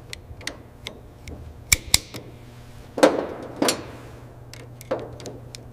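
Sharp metallic clicks and ticks from a metal pipe fitting being handled, coming irregularly, with two loud clicks close together about two seconds in. A few short brushing noises and a steady low hum lie under them.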